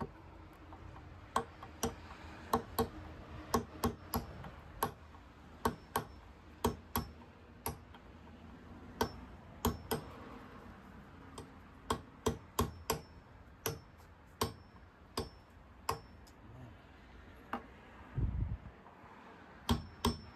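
Hammer tapping home a nail that didn't go all the way in: a long run of sharp, separate strikes at an uneven pace, often one or two a second, with a dull low thump shortly before the end.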